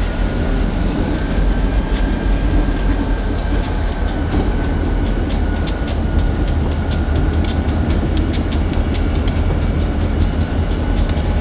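EMD GP38 and GP40 diesel locomotives rolling past on a steel trestle, their engines giving a deep, steady rumble with a faint high whine over it. From about halfway in, the wheels set up a fast, sharp clicking, several clicks a second, over the rail joints.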